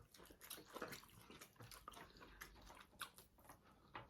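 Faint chewing, with a scatter of short wet mouth clicks and smacks from someone eating.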